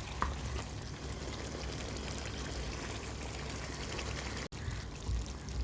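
Lemon pepper chicken in yogurt masala sizzling and simmering in the pan, a steady hiss. The sound drops out for an instant about four and a half seconds in.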